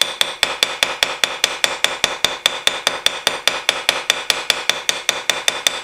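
Small ball-peen hammer tapping quickly and lightly on the pivot pin of a straight razor resting on a bench vise's anvil, about six or seven even taps a second, each with a high metallic ring. The hammer is left to bounce between strokes while it peens the pin over its washer to set it.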